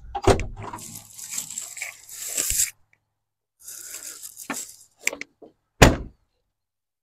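Cat excavator's cab door opening with a knock, then a man climbing down from the cab: rattling and scuffing, a few sharp knocks, and a heavy thump near the end as he steps down.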